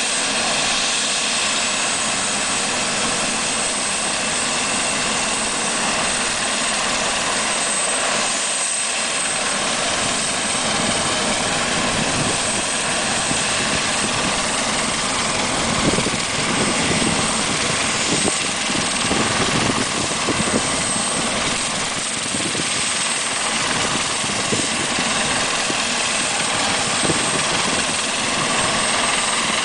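Air-ambulance helicopter running on the ground before lift-off: its turbine engine runs steadily and the main rotor turns with an even rush, with a thin high turbine whine on top.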